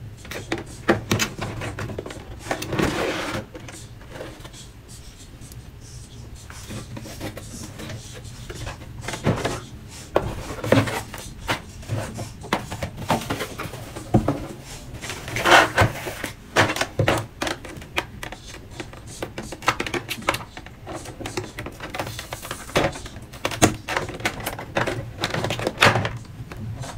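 Packaging being handled during an unboxing: a cardboard box and a clear plastic display case are moved and opened, giving irregular clicks, taps and short rustles.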